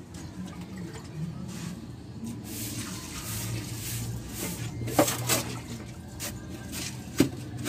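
Shovels scraping and slopping through a heap of wet sand-and-cement mortar being mixed by hand, with water poured in from a bucket. There are a couple of sharp knocks of a shovel blade, one about five seconds in and one near the end.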